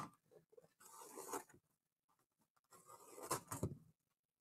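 Faint rustling and scratching of a trading-card box's plastic shrink wrap being picked at by fingers, in two short spells, about a second in and again near three seconds in.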